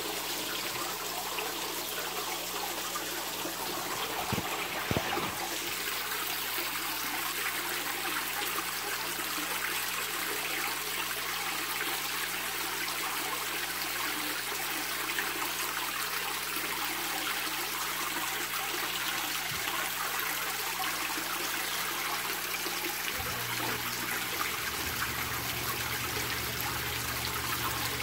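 Water from a bell-shaped fountain nozzle splashing steadily onto the surface of a koi tank, with a faint low hum underneath.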